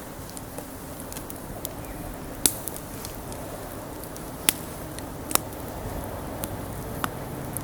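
Wood fire burning: a steady hiss with scattered sharp crackles and pops, the loudest about two and a half, four and a half and five and a half seconds in.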